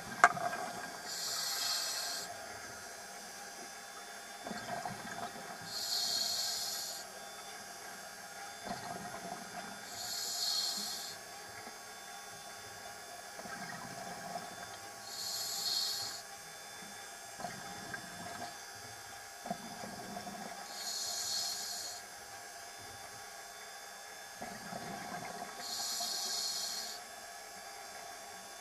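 Scuba diver breathing through a regulator underwater. A rough bubbling rush alternates with a high hiss, one breath about every five seconds, six breaths in all.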